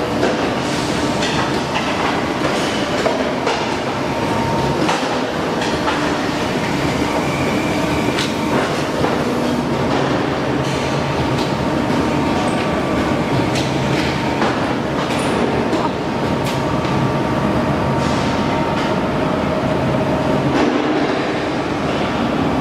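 Punch press and surrounding factory machinery running: a steady mechanical din with irregular clanks and knocks throughout.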